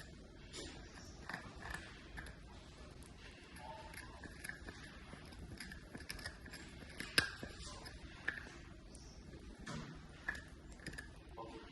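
Mini bichon puppy gnawing a deer antler chew: faint, irregular clicks and scrapes of teeth on antler, with one sharper click about seven seconds in.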